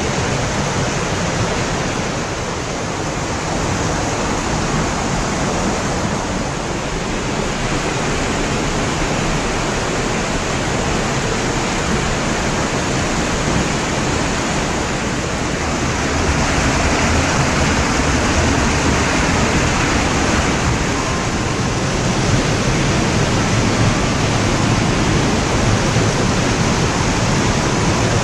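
Loud, steady rush of fast-running water in a valley stream, growing a little louder just past halfway.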